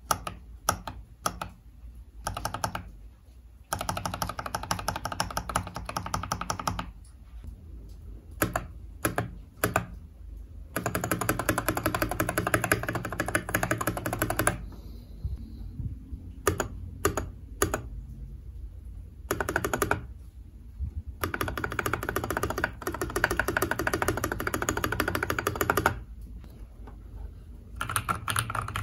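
Typing on a Keydous NJ80 mechanical keyboard fitted with its steel plate, lubed JWK Tactile T1 switches and PBT XDA-profile keycaps. Runs of fast keystrokes a few seconds long alternate with slower, scattered single key presses.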